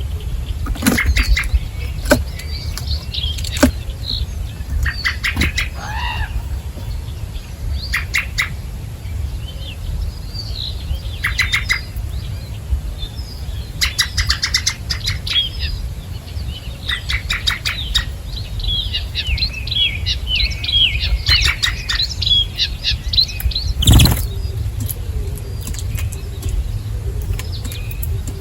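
Small songbirds chirping and twittering at a feeding spot, with quick runs of chirps and a busier spell of chatter toward the end, over a steady low rumble. A sharp knock near the end is the loudest single sound.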